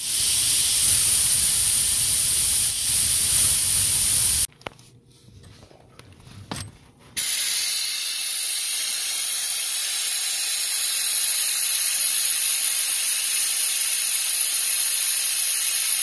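Nitrogen blasting through AC refrigerant lines from a blow gun with a rubber tip pressed into the line, purging them to clear a suspected restriction. A loud hiss for about four and a half seconds, a pause of a couple of seconds, then a second steady hiss from about seven seconds in as the other line is blown out.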